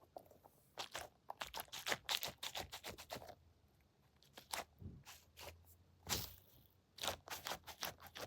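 A foam squishy toy being squeezed and handled close to the microphone: irregular crackling and scraping in clusters, with a short pause about halfway through.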